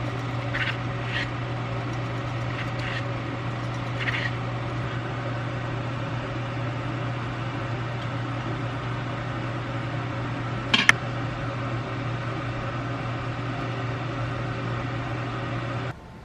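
Steady low hum of a kitchen appliance motor running, with a few faint light clinks and one sharp click about eleven seconds in. The hum cuts off suddenly near the end.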